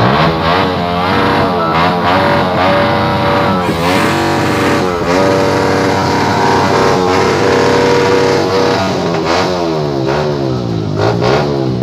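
An engine revved up and down again and again, its pitch rising and falling in repeated sweeps.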